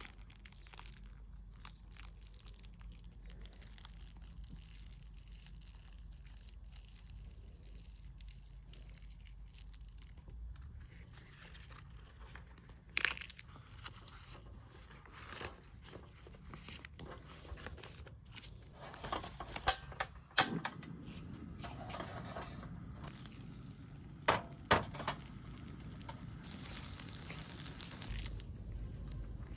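Banana-leaf packet crinkling and crackling as it is handled and grilled, with a few sharp clicks and knocks: one about midway, a loud cluster a little later, and a pair near the end.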